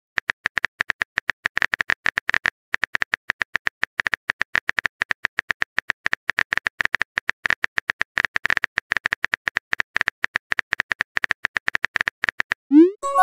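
Phone keyboard typing sound effect: rapid, irregular key clicks, several a second, as a chat message is typed out, with a brief pause a couple of seconds in. Near the end a short rising whoosh marks the message being sent.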